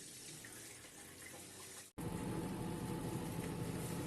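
LG TurboDrum top-load washing machine draining water with a faint steady rush. About halfway through it cuts abruptly to a louder, steady rumble and hum of the drum spinning in the spin cycle on its newly fitted basket and spider.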